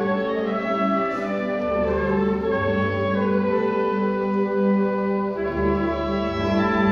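High school concert band playing held brass chords, with low notes coming in and out under them.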